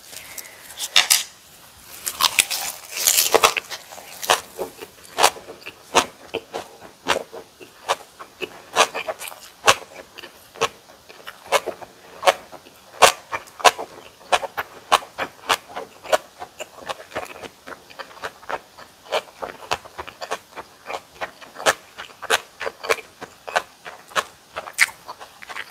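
Close-miked chewing of crunchy kimchi with boiled pork: a steady run of sharp, wet crunches, about two to three a second, with a louder, noisier stretch of biting about two to three seconds in.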